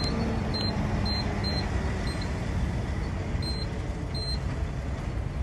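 Fuel pump keypad beeping as buttons are pressed to enter a phone number: short high beeps about every half second through the first two seconds, then two more near the end. A steady low engine and traffic rumble runs underneath.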